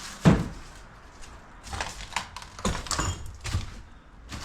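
A single loud knock about a third of a second in, then a few irregular footfalls and knocks as someone walks through a debris-strewn, partly demolished room.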